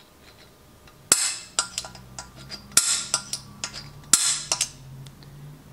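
Center punch marking a motorcycle frame's backbone through the holes in a gas tank's mounting tabs: three sharp metallic strikes about a second and a half apart, with lighter taps and clicks between.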